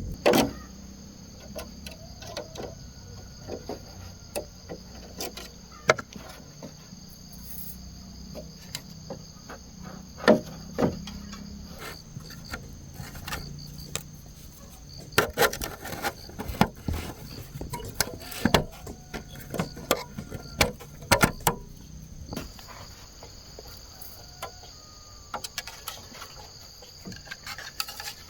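Insects chirping steadily, with irregular sharp knocks and clatter throughout.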